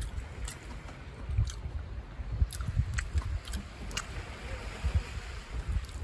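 Rain dripping around a camp awning: scattered sharp drips and ticks over a faint hiss and a low, uneven rumble.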